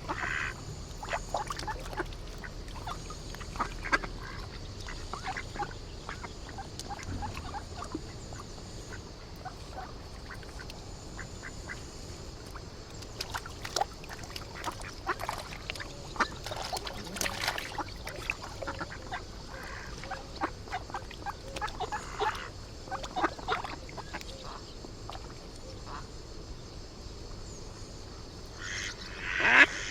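Ducks quacking and geese honking on floodwater, many short calls scattered over a steady background hiss. Louder, closer calls come in a burst near the end.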